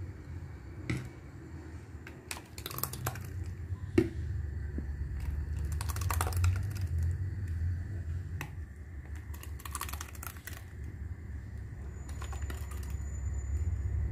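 Light plastic clicks and taps as a blender jar and small plastic tubs knock together while blended tomato sauce is poured into the tubs. The clicks are scattered and uneven, the sharpest about four seconds in, over a low steady hum.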